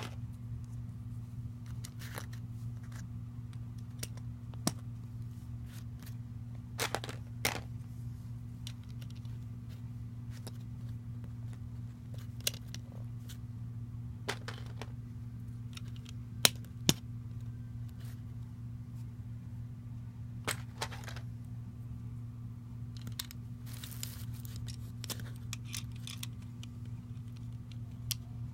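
Plastic Lego bricks clicking and tapping as a small model is handled and pressed together. There are a dozen or so scattered sharp clicks, the loudest two in quick succession about sixteen seconds in, over a steady low hum.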